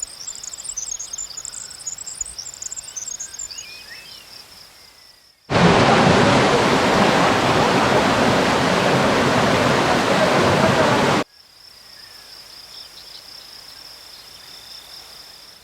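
Outdoor nature ambience: insects chirping with a steady high drone and a few faint bird calls. About five seconds in it cuts abruptly to a loud, even rushing noise for about six seconds, then cuts back to the steady insect drone.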